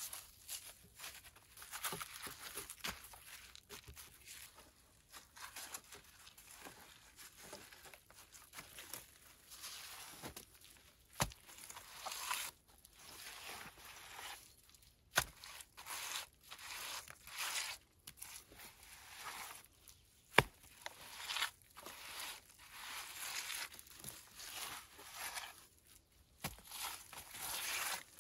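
Stones being set and dry earth handled for a stone-and-clay fireplace: irregular scraping, rustling and crumbling of soil, with a few sharp knocks of stone on stone.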